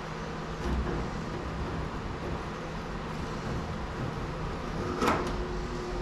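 A dull thump just under a second in and a sharp knock about five seconds in, over a steady low hum.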